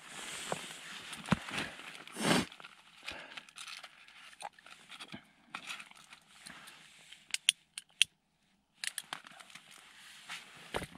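Rustling and crinkling handling noise with scattered sharp clicks and knocks. The loudest rustle comes about two seconds in, and the sound cuts out to complete silence for a moment just after eight seconds.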